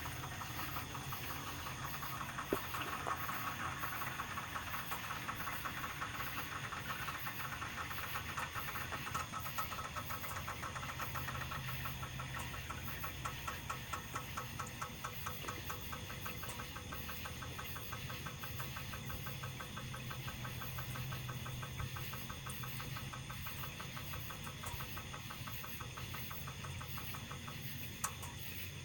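A rapid, even ticking from a 1998 Jeep 4.0 straight-six engine after it is switched off, slowly fading. The owner cannot identify it: the engine was just rebuilt, and the same noise comes when it is turned over by hand with a wrench.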